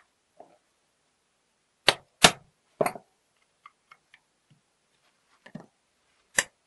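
Metal clacks and clicks as the cover plate of an old gate lock is fitted back onto the lock case: three loud clacks about two to three seconds in, a few light clicks after, and one more loud clack near the end.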